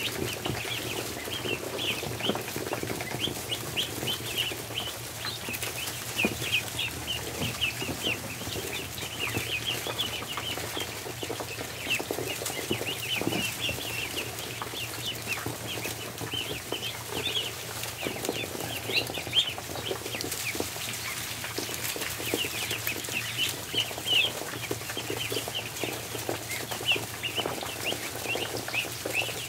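A brood of ducklings peeping constantly, many short high chirps overlapping, with scattered light taps and scuffling from the birds on the floor around their feed.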